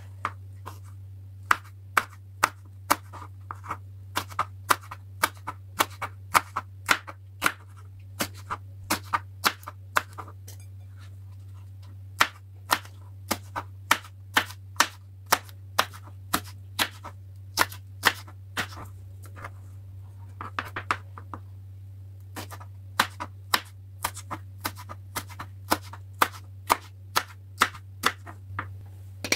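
A knife chopping food on a cutting board at about two cuts a second, each cut a sharp knock, with a few short pauses. A steady low hum runs underneath.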